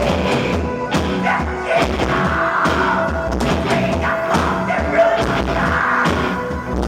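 Black metal band playing live, with drums and guitar under held keyboard tones, loud and continuous.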